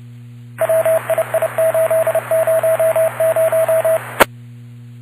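Police scanner radio channel opening with hiss that carries a string of short and long beeps at one steady pitch. After about three seconds it cuts off with a sharp click.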